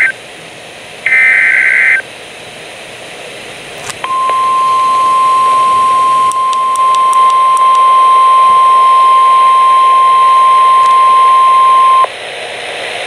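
Recreated NOAA Weather Radio alert. A one-second SAME digital header burst, a harsh two-tone data screech, comes about a second in. After a pause of background hiss, the steady 1050 Hz weather radio warning alarm tone sounds for about eight seconds, signalling a warning is about to be read.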